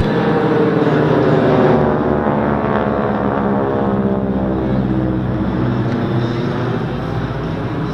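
Piston engines of three propeller warplanes flying overhead in formation: a steady drone that is loudest about two seconds in, then slowly fades as they pass.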